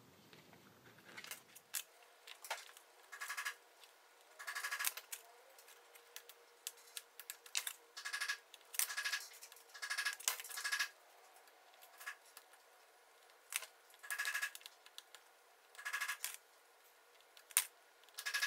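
Small pieces of sawn veneer being handled, wedged and pushed into place on a paper assembly board: a series of short, scratchy rustles and a few sharp clicks, irregularly spaced.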